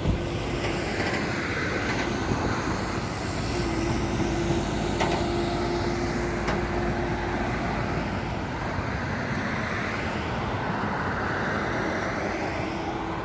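Highway traffic going by: a steady rumble of tyres and engines from passing vehicles, with a steady hum that comes in about three seconds in and fades a few seconds later.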